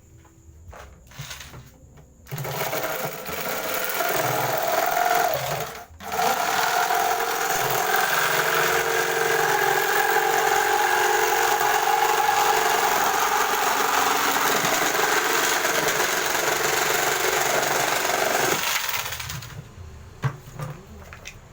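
Orion electric jigsaw running at speed setting 3 while cutting through 5 mm plywood. It starts about two seconds in, stops for a moment, then runs steadily before switching off near the end, followed by a few light knocks.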